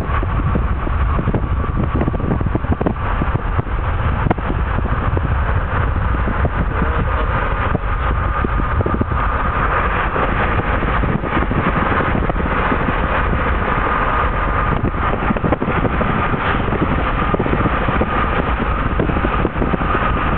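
Steady road noise of a car driving at speed, heard from inside the cabin: a continuous rumble of tyres and engine, with a thin steady whine over it.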